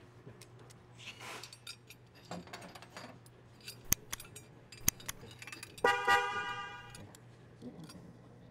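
A subscribe-button sound effect: two sharp mouse clicks about a second apart, then a bell-like notification chime that rings and fades over about a second. Under it, faint metallic clinks of steel clutch-fork parts being handled.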